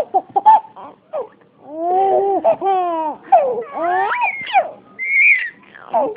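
A young child laughing: short choppy bursts at first, then longer squealing laughs that rise and fall in pitch, ending in a high squeal.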